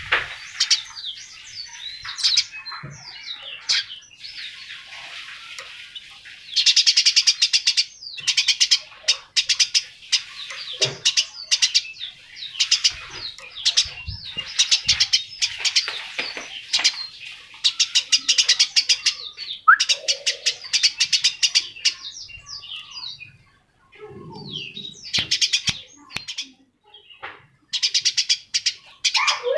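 Birds calling: bursts of rapid, high chirps in trilled runs lasting a second or two, repeated again and again, with a few lower, softer calls about two thirds of the way through.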